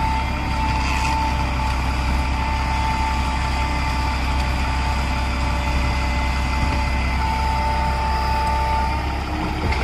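Heavy truck engine running steadily at idle, a low rumble under a constant steady tone.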